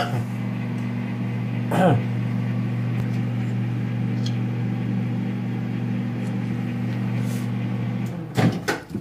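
Microwave oven running with a steady low hum, which cuts off abruptly about eight seconds in and is followed by a few short clicks.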